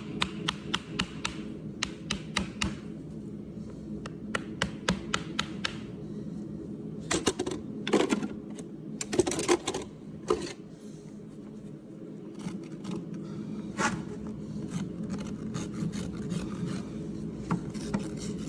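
Farrier's rasp filing a horse's hoof: runs of quick, sharp strokes, with a burst of louder, longer scraping strokes about seven to ten seconds in.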